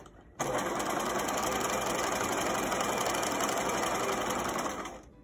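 Bernina sewing machine running at a steady speed in straight stitch, sewing down a long cloth tie. It starts about half a second in and slows to a stop near the end.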